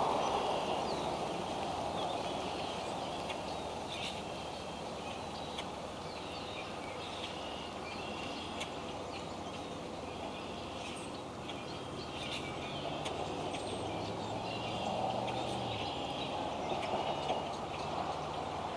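Steady hiss of a rain shower, with birds chirping in short, repeated high calls over it. A faint low drone comes in about two-thirds of the way through.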